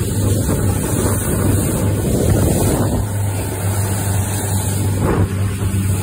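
Motorboat engine running steadily under way, with water rushing past the hull.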